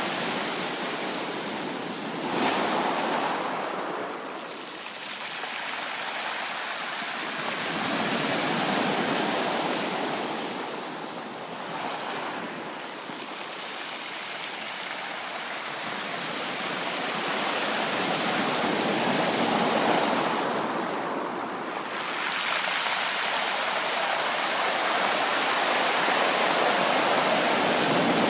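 Sea waves breaking and washing up a beach, rising and falling in slow surges. One wave breaks more sharply about two seconds in.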